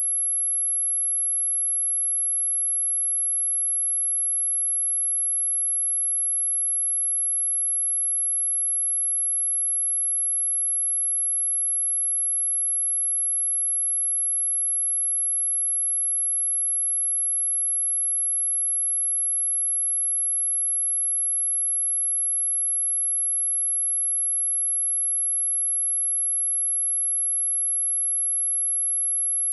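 A steady, unbroken, high-pitched sine-wave test tone at 11114 Hz, holding one pitch and level throughout. It is a speaker test tone, also meant to shake water and dust out of a speaker.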